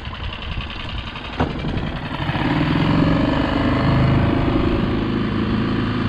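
Small Mercury outboard motor on an inflatable boat, running low at first, then speeding up about two seconds in and holding a steady, louder run as the boat gets under way. A single sharp knock comes about a second and a half in.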